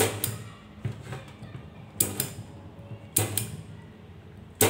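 Battery spot welder firing, a sharp snap with each pulse, five in all and irregularly spaced, with a low steady hum underneath. Each snap is a weld fixing a nickel strip to the 18650 lithium-ion cells, joining the groups in series for a 3S2P pack.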